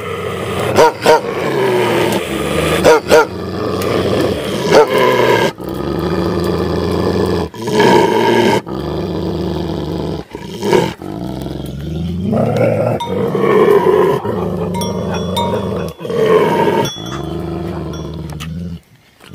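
Tibetan mastiffs growling at one another in a tense standoff: deep, continuous growls that rise and fall in pitch, ready to break into a fight.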